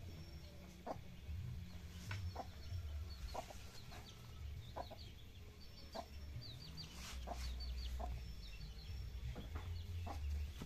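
Bird calls: short low clucks and high chirps scattered irregularly throughout, over a steady low rumble.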